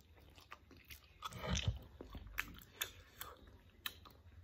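A person eating spicy instant noodles close to the microphone: slurping a strand and chewing, with many short scattered clicks and one louder, fuller sound about a second and a half in.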